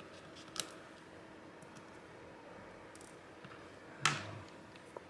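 Small tools and parts clicking during hands-on iPad repair work: a sharp click about half a second in, a louder one about four seconds in and a tiny one near the end, over a faint steady hum.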